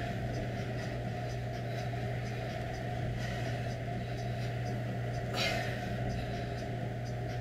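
Steady low electrical-sounding hum with a faint, evenly repeating high tick, and one short sharp breath out about five seconds in.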